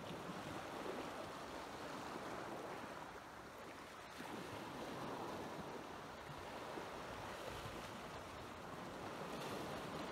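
Calm sea water lapping at the rocky shoreline, a steady soft wash that swells and eases a little.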